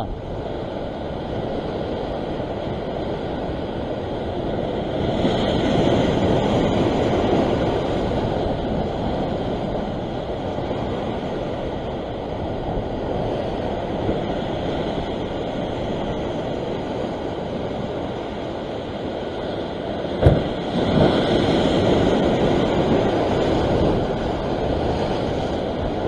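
Ocean waves surging and breaking against the rocks, mixed with wind buffeting the microphone; the wash swells louder twice, about a fifth of the way in and again near the end. A single sharp knock comes just before the second swell.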